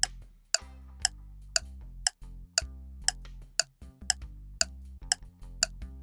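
Clock-ticking sound effect for a quiz countdown, about two sharp ticks a second, over background music with sustained low bass notes.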